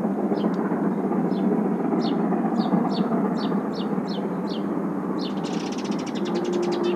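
Distant three-cylinder steam locomotive 03 1010 working hard, a steady rumbling roar of exhaust across the valley, with its whistle starting up about six seconds in. A small bird nearby calls over it in repeated short chirps, breaking into a fast trill near the end.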